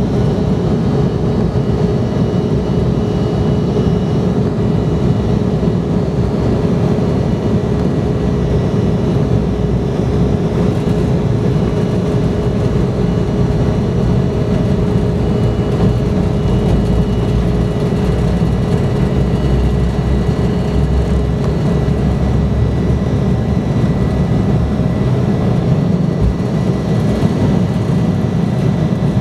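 Embraer 170's General Electric CF34 turbofans at takeoff thrust, heard inside the cabin during the takeoff roll: a steady engine tone over a deep rumble that grows heavier about halfway through as the jet gathers speed.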